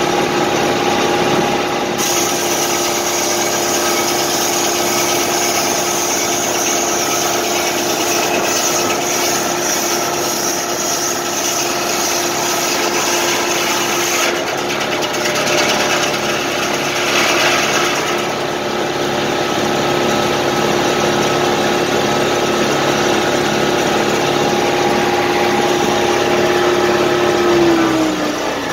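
A tractor engine runs steadily at working speed, powering a circular sawmill during a test run, with an even whine and a hiss laid over it for the first two-thirds. Near the end the pitch drops as the engine is throttled back toward idle.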